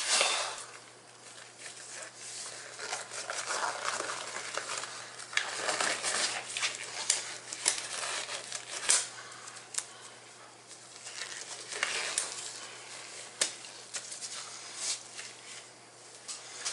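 Black disposable gloves being pulled onto the hands: irregular rubbery rustling and crinkling, with several sharp snaps, the loudest about nine seconds in.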